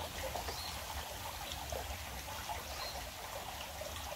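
Small river flowing: a steady babble of running water.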